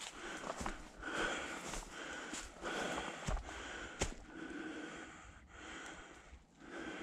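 A person breathing hard and rhythmically close to the microphone while walking, about a breath every half to three-quarters of a second. A few sharp snaps of steps or twigs in dry grass and leaf litter come about half a second in and again around three and four seconds in.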